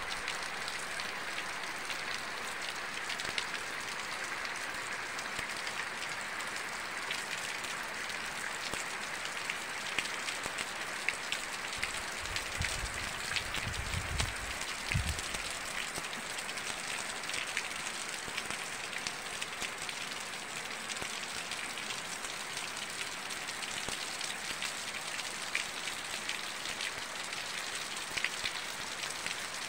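Steady rain falling, with many scattered sharp drop clicks. A short low rumble comes a little before the middle.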